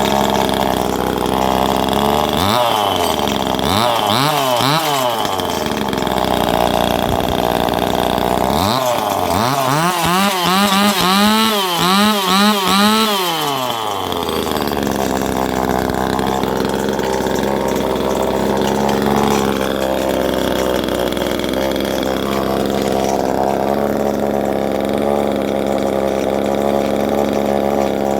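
Chainsaw engine running, its throttle blipped again and again so that the pitch rises and falls in quick sweeps, twice in a row of revs early and in the middle, then settling back to a steady running note.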